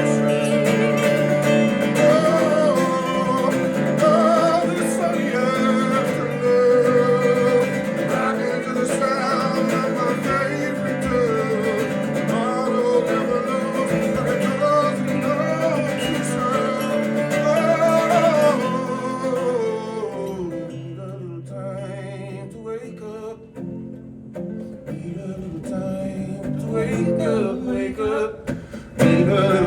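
Acoustic bluegrass music: strummed and picked acoustic guitar under a singing voice. About two-thirds of the way through it drops to a quieter instrumental passage, and the full sound returns at the very end.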